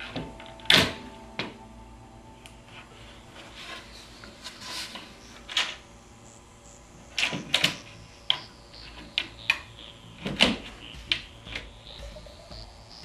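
Irregular knocks and clacks of wooden cabinet side panels and their metal corner brackets being set onto a face frame and pushed into place, the loudest about a second in and small clusters of clacks later on.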